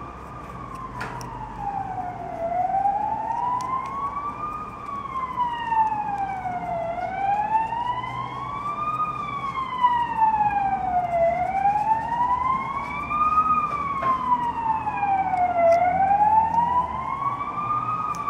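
Emergency vehicle siren wailing: one tone sliding slowly up and down in pitch, about four rise-and-fall cycles, growing louder over the first few seconds.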